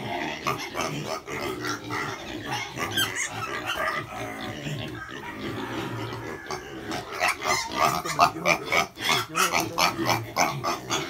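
Several piglets grunting and squealing, the squeals coming quicker and louder over the last few seconds.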